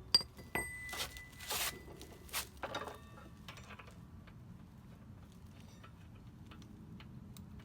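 Metal parts of a motorcycle front wheel being handled: a sharp metallic clink that rings briefly, then two short scraping rustles and a few light knocks, fading to occasional faint ticks.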